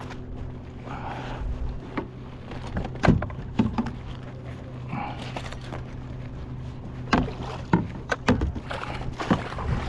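Sounds on a fishing kayak: a steady low hum, two short swishes, and a string of sharp knocks, the loudest a little after three seconds in.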